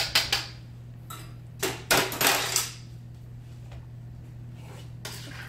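A wire whisk beats against a stainless-steel mixing bowl in quick regular strokes that stop just after the start. Then the metal bowl and utensils clatter and scrape, for about a second around two seconds in and briefly again near the end, over a steady low hum.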